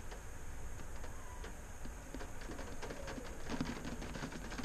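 Water drops pattering on the car, heard from inside the stationary car as a dense, irregular light ticking.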